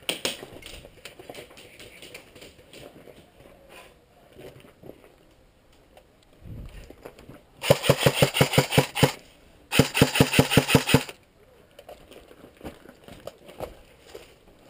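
Airsoft gun firing two rapid full-auto bursts, each about a second and a half long with a short pause between, at about ten shots a second.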